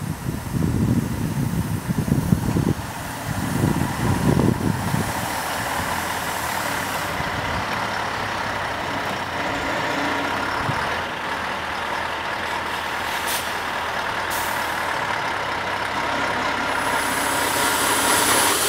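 Tatra 815-7 8x8 truck's diesel engine running under load as it crawls up onto a stack of logs, with a faint steady whine. Loud, uneven rumbling during the first five seconds, and two sharp knocks about a second apart past the middle.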